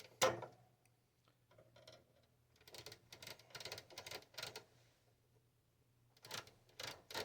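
Wafer-switch channel tuner of a 1957 General Electric vacuum-tube television turned with pliers, clicking through its detents to work freshly sprayed contact cleaner into the wafers. One sharp click comes just after the start, a quick run of clicks about three seconds in and another near the end, over a steady low hum.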